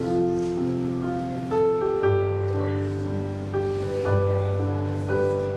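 Instrumental music of held, steady notes stepping through a slow melody, with a deep bass note coming in about two seconds in.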